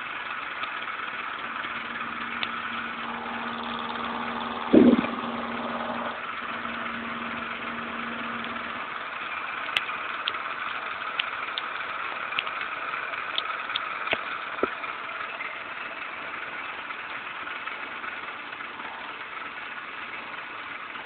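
Milling machine running, its 5/16-inch ball-nose end mill cutting a groove in an aluminum disc on a rotary table, a steady whir. There is one brief louder thump about five seconds in and scattered light ticks in the middle.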